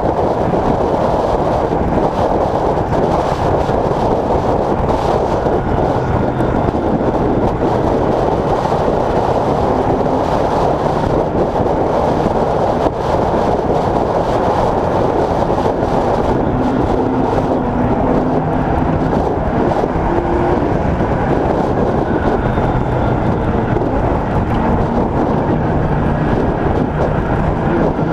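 Late Model Stock race car's V8 engine and road noise heard inside the cabin, running steadily at speed with only slight rises and falls in engine pitch.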